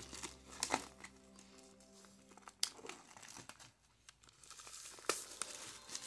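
Plastic shrink wrap being torn and peeled off a vinyl record jacket: crinkling, with sharp crackles about a second in, about two and a half seconds in, and again around five seconds in.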